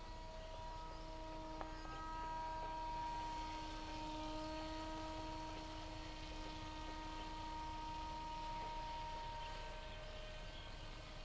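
Faint, steady drone of a small RC pusher plane's motor and propeller flying overhead, a hum with a few steady tones that drift a little in pitch. It swells slightly a few seconds in and fades near the end.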